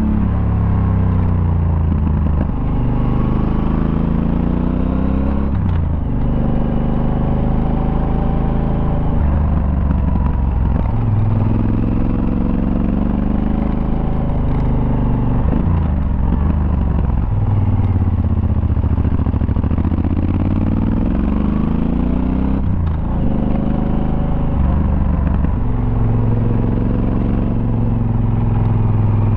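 Yamaha Super Tenere's parallel-twin engine heard onboard while riding, its revs climbing and then falling back every few seconds.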